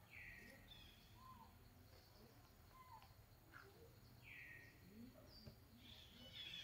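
Faint bird calls in forest background: scattered short whistled notes every second or so over a soft steady hiss.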